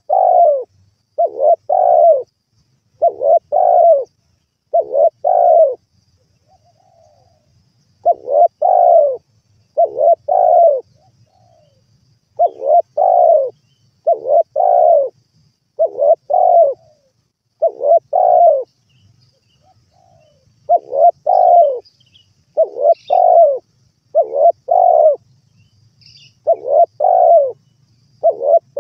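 Spotted dove (tekukur) singing: a long series of mellow coos, one about every second, in runs of three to five with pauses of a second or two between runs.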